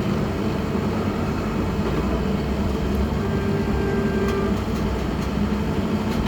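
Engine running steadily with a low drone, a brief higher whine entering about three seconds in and fading a second and a half later.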